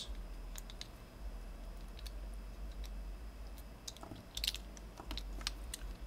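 Light clicks and taps of small plastic parts and a metal rivet being handled and fitted together in a wire stripper. The clicks are few and scattered at first and come more often in the last two seconds.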